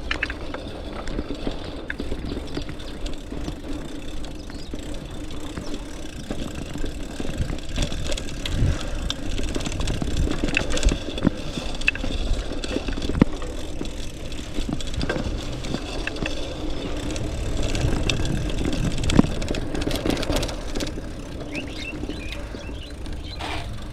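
A mountain bike ridden over a rough dirt track: steady tyre rumble with frequent rattling knocks and clicks as the bike jolts over bumps.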